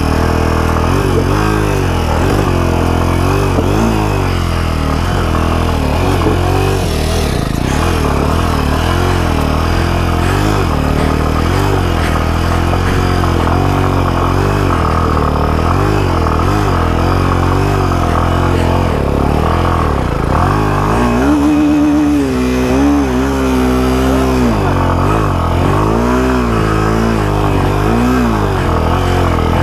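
Jawa 42 2.1's single-cylinder engine pulling in first gear over a rough off-road track, its revs rising and falling over and over with the throttle. The revs climb higher for a few seconds about two-thirds of the way through.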